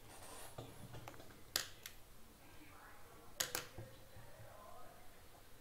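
Two quick pairs of sharp clicks at a computer, about two seconds apart, over faint room noise.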